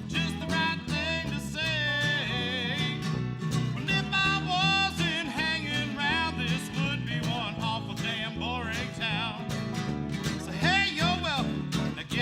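Country band playing an instrumental passage: strummed guitar accompaniment under a lead melody line of sliding, wavering notes.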